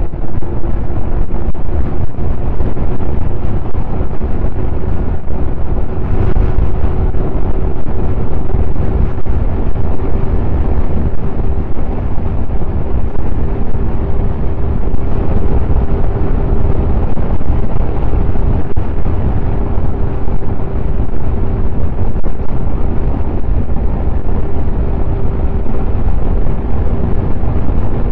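Snowmobile engine running steadily while riding a trail, with heavy wind buffeting the microphone.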